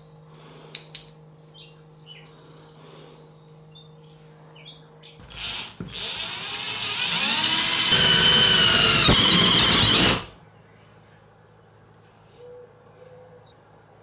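Cordless drill with a step drill bit boring a 6 mm hole through a copper cylinder: the whine rises in pitch as the drill speeds up, is loudest over the last two seconds of cutting, and stops sharply after about five seconds. Before it, small clicks of a brass valve fitting being handled.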